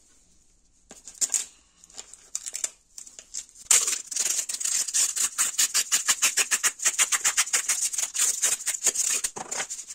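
Masking tape being pulled off the roll and wrapped around a wooden tool handle: a few separate peels at first, then from about four seconds in a fast crackling run of about seven snaps a second as the tape unwinds, stopping just before the end.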